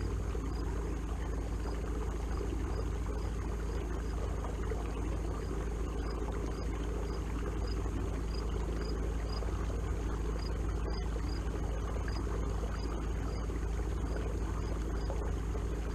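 Watersnake T24 electric trolling motor, a small 24 lb-thrust outboard, running at a steady speed with an even low hum, while water swishes along the kayak's hull.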